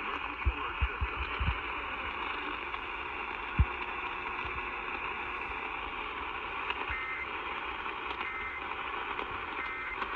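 Steady static hiss from a radio receiver on a weak broadcast signal. Near the end come three faint, short digital data bursts about a second and a half apart, the EAS end-of-message tones that close a required monthly test.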